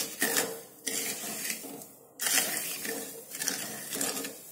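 Wooden spatula stirring and scraping undissolved sugar crystals in water around a nonstick kadai, in several gritty strokes, while the sugar is being dissolved for syrup.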